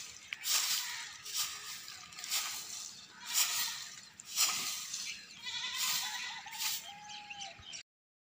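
Short straw hand broom sweeping dry neem leaves and grit across a concrete roof, a rough swish with each stroke, about one or two strokes a second. A faint animal call with a wavering pitch sounds in the background a little past the middle, and the sound cuts off suddenly near the end.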